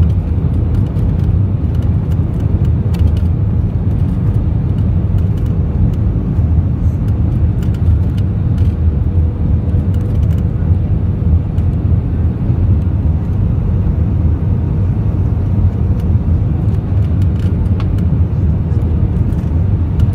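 Steady cabin noise of an Airbus A320ceo on approach to land, heard from a window seat over the wing: a deep, even rumble of engines and airflow with a faint steady tone above it.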